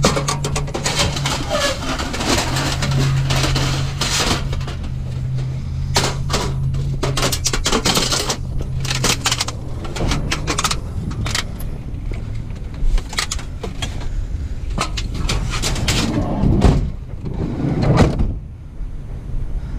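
A vehicle engine running with a steady low hum that fades about halfway through, under irregular knocks and clatter.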